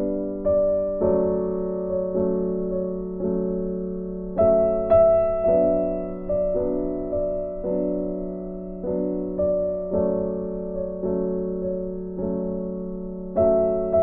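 Background piano music: chords struck about once a second, each left to fade.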